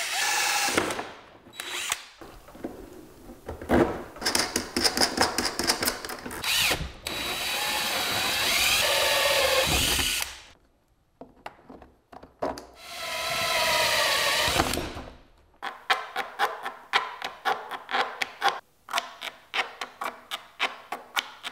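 DeWalt cordless drill driving a hole saw through the plastic wall of a hard case, in several runs with short pauses between them. The motor whine rises and falls as the saw bites. Near the end comes a quick run of sharp clicks and knocks.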